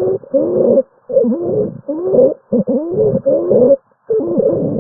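Stridor: rapid breaths, each carrying a pitched, wavering tone, coming in quick succession with short pauses between them. It is the sign of a narrowed upper airway.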